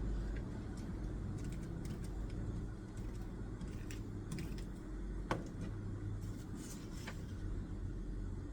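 Small clicks and taps of desk work, scattered through the middle with one sharper click about five seconds in, over a steady low background rumble.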